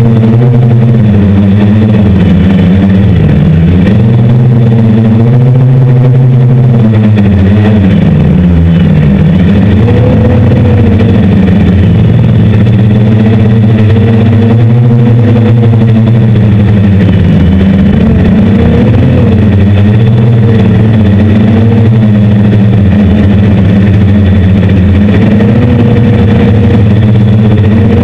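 Six brushless motors with 10-inch propellers on a hexacopter, droning loudly in flight, the pitch dipping and rising several times as the throttle changes.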